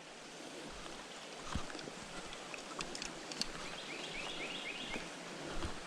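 Faint outdoor background hiss with a bird calling a quick run of repeated falling chirps, about six notes, in the middle of the stretch; a few light clicks and knocks scattered through.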